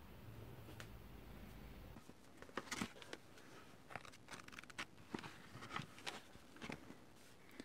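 Faint, irregular clicks and crackles, starting about two seconds in and scattered through the rest, over a low room hum that drops away when they begin.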